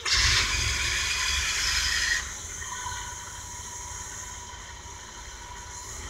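Chevy 454 big-block V8 starting warm without the choke: it catches at once, runs loud for about two seconds, then settles to a steady idle, heard from inside the motorhome's cab.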